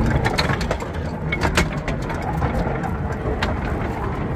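Steady low mechanical rumble with scattered clicks and knocks over it.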